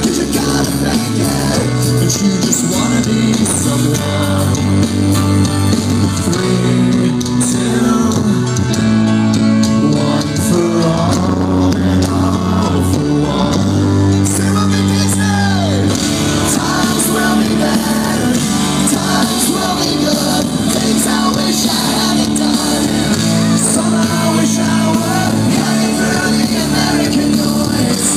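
Live rock band playing through a concert sound system: electric guitars, bass and drums with singing.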